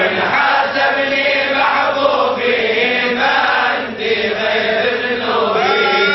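A man's voice chanting a kaside, a Sufi devotional ode, in long drawn-out notes that bend and waver in pitch.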